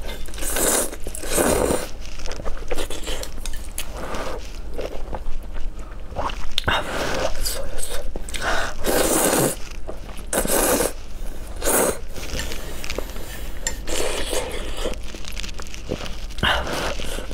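Close-miked eating of spicy red-sauced noodles: repeated slurps of strands sucked in with chopsticks, every second or so, with wet chewing between.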